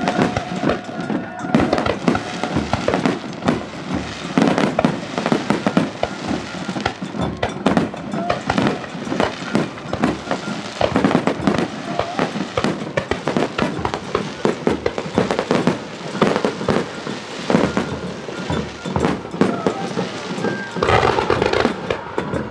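Aerial fireworks bursting in a dense, continuous barrage, many loud bangs and crackles in quick succession with no break.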